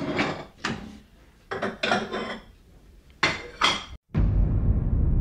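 Kitchenware clinking: a series of sharp clinks with a short ring, in uneven clusters. About four seconds in it cuts off abruptly and a steady low rumble takes over.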